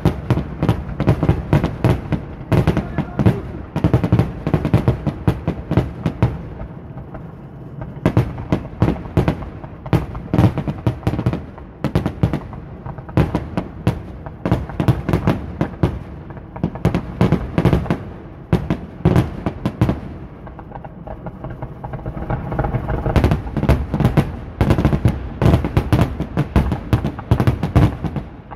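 Fireworks: aerial shells launched and bursting in rapid volleys, a dense run of bangs that thins briefly about six seconds in and again about twenty seconds in, then picks up again.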